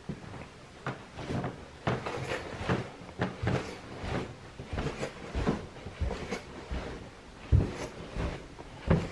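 Footsteps going down a carpeted staircase, a dull knock about twice a second, with one heavier thump near the end.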